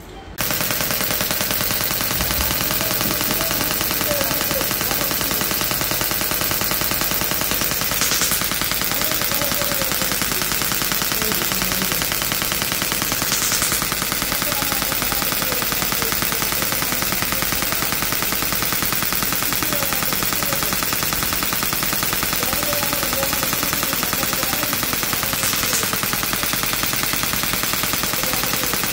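Electric percussion massager running steadily, a rapid even hammering that starts abruptly about half a second in.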